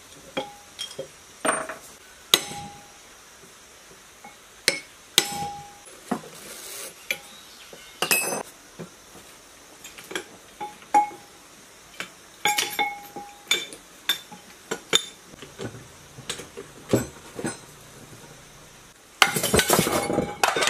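Hand tools clinking and knocking against the flywheel hub of a scrap diesel engine being taken apart, single metallic taps, some with a short ring, with a dense burst of metal clatter near the end.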